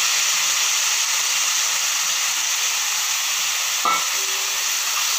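Chopped vegetables and onions sizzling steadily in hot oil in an aluminium pressure pan, with one sharp knock of the metal spatula against the pan near the end.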